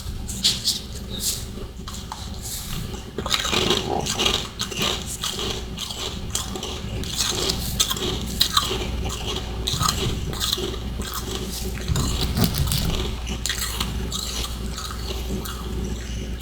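Close-miked biting and chewing of powdery freezer-frost ice chunks: a dense, irregular run of crisp crunches and crackles.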